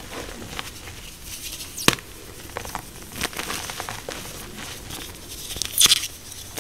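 Hands crushing and crumbling blocks of gym chalk: a run of soft gritty crunches and crackles, with a sharp snap about two seconds in and a louder crumbling crunch near the end.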